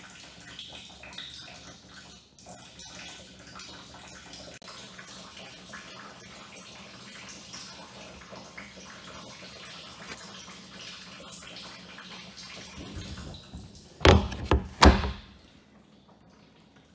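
Maple sap trickling and dripping from the end of a 3/16-inch sap line into a collection tank, the drops falling into sap already inside. Two loud bumps come about two seconds before the end.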